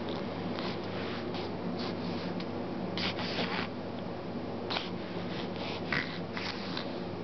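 Newborn baby stirring in a bassinet: a few short, soft rustles of the swaddling blanket and bedding over a steady low hum.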